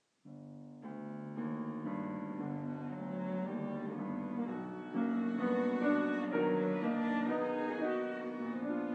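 Piano trio of grand piano, violin and cello playing sustained chamber music in a reverberant hall. The music enters suddenly after a silence about a third of a second in, then swells louder in steps, most clearly about five seconds in.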